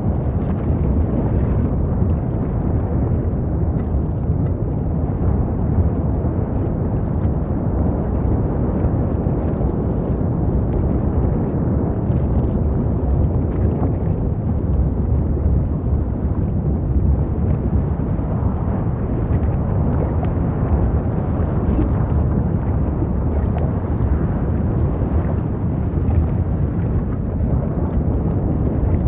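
Volcano eruption sound effect: a continuous deep rumble, steady with no breaks or separate blasts.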